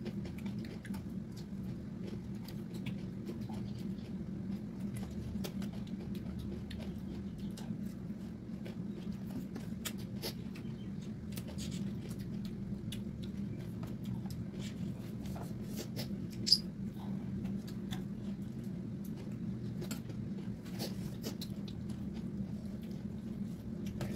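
Close-up eating sounds of people chewing rice and pork trotters by hand: a scatter of small wet mouth clicks and lip smacks over a steady low hum, with one sharper click about sixteen seconds in.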